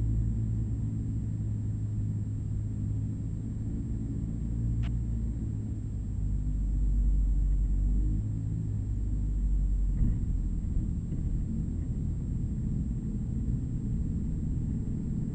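Earthstar Thunder Gull light aircraft's engine running steadily, heard from inside the cockpit as a loud, low drone during a touch-and-go on a dry lakebed. It swells a little about seven seconds in.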